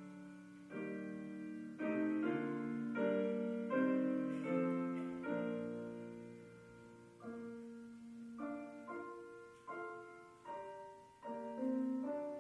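Piano playing slow chords, each struck and left to fade, with a softer, sparser stretch in the middle before a few more chords near the end.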